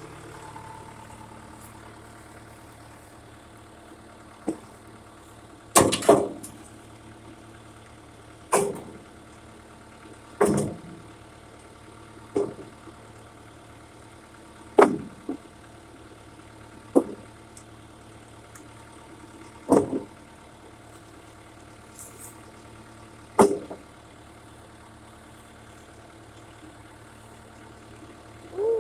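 Backhoe engine idling steadily while chunks of firewood are tossed into its loader bucket, giving about ten loud knocks every couple of seconds that stop a few seconds before the end.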